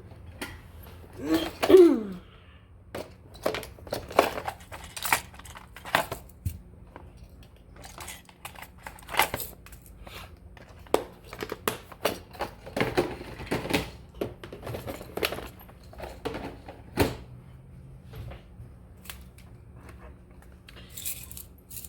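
Hands rummaging through jewelry-making supplies in search of earring wires: scattered light clicks and taps of small containers and packets being handled, with some rustling.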